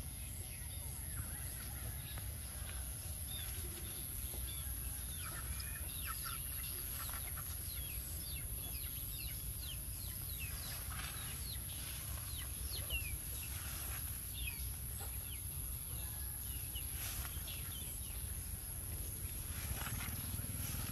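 Birds chirping: many short falling calls come and go over a steady low rumble.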